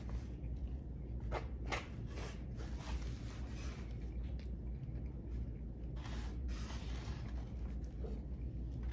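A person chewing and eating close to the microphone, with scattered short wet clicks and smacks, over a steady low hum.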